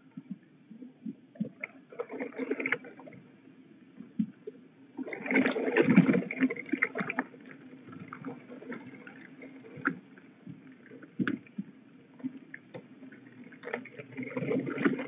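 Juvenile peregrine falcons flapping their wings and scuffling on a wet wooden nest ledge: rustling bursts of wingbeats, with the loudest and longest flurry a few seconds in and another near the end, and scattered knocks and scrapes from talons on the boards in between.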